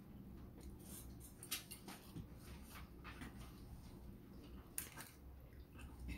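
Faint eating sounds from a person eating noodles with a metal fork: chewing, with a few short sharp clicks, the clearest about a second and a half in and near five seconds.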